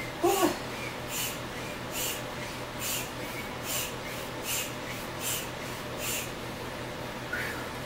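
A small handheld squeeze pump puffing air through a hose into an inflatable ball, about one puff every 0.8 seconds, eight in all, stopping about six seconds in. A brief pitched squeak about half a second in is the loudest sound.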